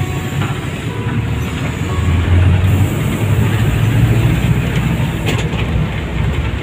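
Inside a moving bus: a steady low rumble of engine and road noise that swells a couple of seconds in, with a single sharp click about five seconds in.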